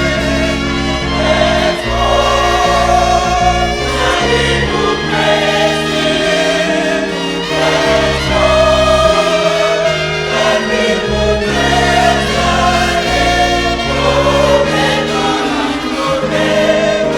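Gospel choir singing over instrumental accompaniment with a steady bass line.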